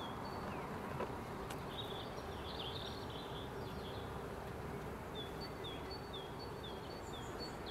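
Honey bees buzzing steadily around an open hive, with a small bird giving short chirps in the background, a quick run of them, about two a second, in the last few seconds.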